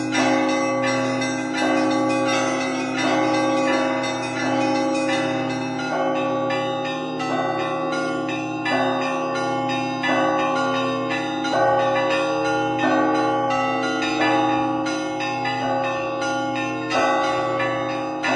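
Russian Orthodox church bells rung by a single bell ringer in a continuous peal: quick chiming of smaller bells over deep bells that keep ringing underneath, with a heavier stroke recurring about every second and a half.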